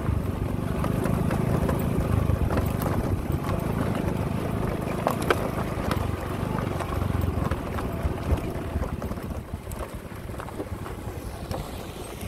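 Small motorbike engine running at low speed over a bumpy dirt path, with wind buffeting the microphone and a few sharp knocks from the rough ground. The rumble eases off near the end.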